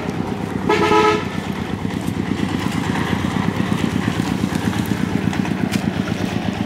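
A small engine running steadily with a fast, even putter. A short pitched sound rings out for about half a second, about a second in.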